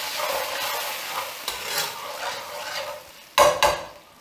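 Metal ladle stirring pumpkin purée and clear stock in a stainless steel wok, with a sizzle from the hot pan. Near the end come two sharp, loud metal knocks, the ladle struck against the wok.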